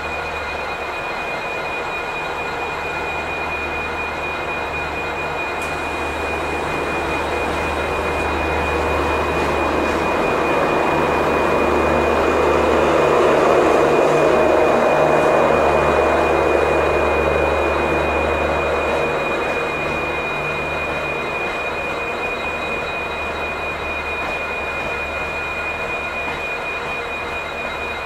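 Diesel locomotive and train on the tracks: a low engine throb and a steady high whine run throughout, while the rumble of the train swells to its loudest about halfway through and then fades back.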